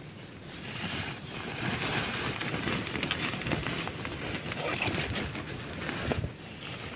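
Tent door being unzipped and the tent fabric rustling as the flap is handled and pulled open, dying down a little after six seconds in.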